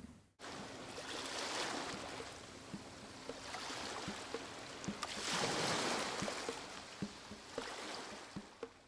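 Moving water: a rushing wash that swells twice, like waves coming in, with scattered small splashes and drips, fading near the end.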